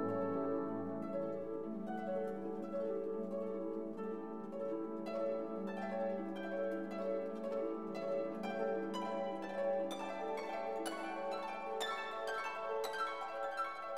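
Gentle instrumental background music: a quick run of plucked, harp-like notes over held string notes.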